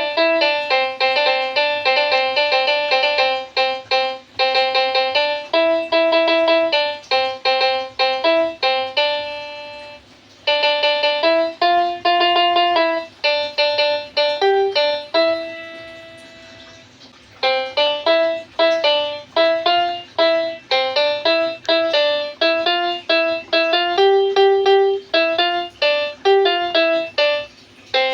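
Toy telolet 'basuri' keyboard playing a quick tune of short electronic bus-horn notes key by key. The tune breaks off briefly about ten seconds in and again around sixteen seconds in.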